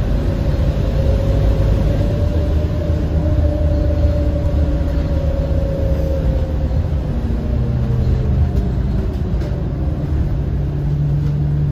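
Scania K230UB city bus's five-cylinder diesel running under way: a steady low rumble with a whine that rises and falls over several seconds. About two-thirds of the way through, a low engine tone comes in and steps up in pitch near the end.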